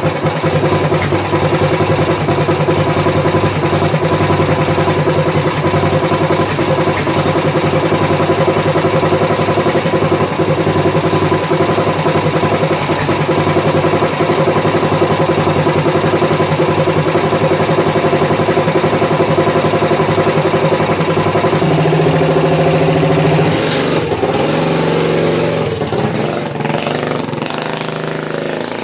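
Modified Predator 212 single-cylinder engine of a Monsta Torq mini-bike running at a steady speed. About 22 seconds in its pitch drops and the sound turns uneven and a little quieter.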